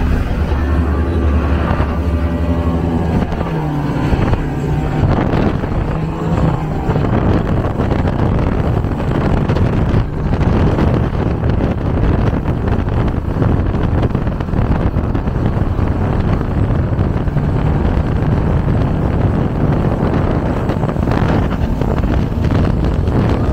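A big offshore powerboat's engines rumble low and steady close by. After about four seconds the boats run up to speed: engine noise, rushing water and wind buffeting the microphone blend into one loud roar.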